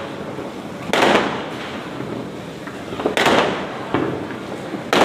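Diwali firecrackers going off: two loud bangs, about a second in and about three seconds in, each with a long echoing tail. Smaller cracks follow near the end, and another bang comes right at the close over a steady background of distant crackling.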